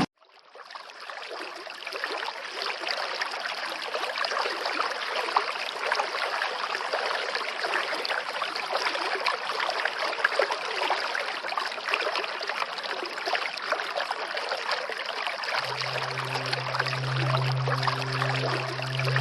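Steady rushing water of a waterfall, fading in over the first couple of seconds and running evenly. Low sustained music notes come back in over it about sixteen seconds in.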